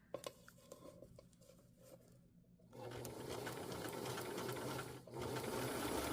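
Sewing machine running as it stitches zipper tape to the fly of a pair of jeans. It starts after a few small handling clicks, about three seconds in, stops briefly near five seconds, then runs on.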